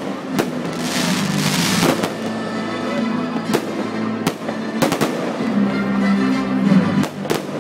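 Aerial fireworks shells bursting in a series of sharp bangs, about eight in all, with a spell of crackling and hissing about a second in, over music playing underneath.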